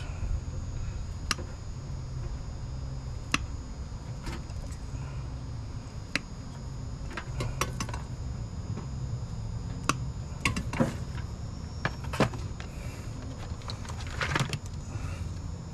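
Wire cutters snipping through small-gauge wires of a wiring harness one at a time: about a dozen sharp clicks, a second or more apart, over a steady low hum. Near the end comes a short cluster of clicks and rattles.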